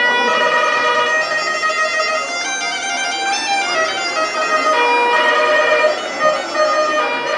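A reed pipe playing a folk melody of held notes that step up and down in pitch.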